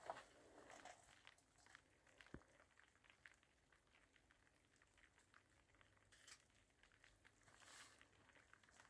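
Near silence in a rock cave passage, with a few faint, brief scuffs and taps, one just after the start and one a couple of seconds in, as a person crawls through the gap between the boulders.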